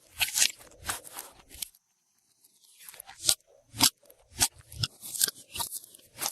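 Glossy slime being squished and stretched by hand, making an irregular series of sharp clicks and pops, with a pause of about a second partway through.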